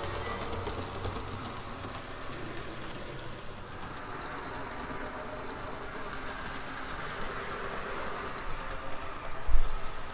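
HO scale model diesel locomotives, an Athearn Genesis F3A and F3B pair with both units powered, running on the layout track: a steady motor hum with wheel noise on the rails. A few loud low thumps come near the end.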